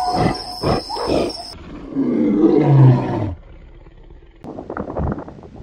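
Lion roaring: one loud, deep roar that falls in pitch about two seconds in, followed by a run of short grunts near the end. Before it, a few short knocks are heard in the first second and a half.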